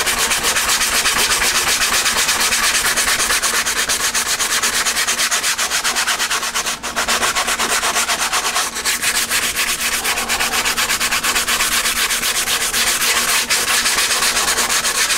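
Sandpaper on a hand pad rubbed in quick, short back-and-forth strokes over the resin-coated fiberglass skin of a balsa model airplane fuselage, sanding out the final coat of resin.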